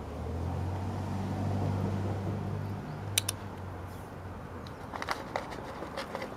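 A low, steady motor hum, loudest in the first half and fading out after about four seconds, with a sharp double click about three seconds in and a scatter of light ticks near the end.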